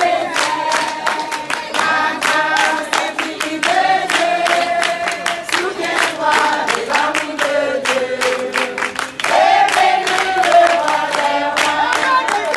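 A group of voices singing together, with steady rhythmic hand-clapping.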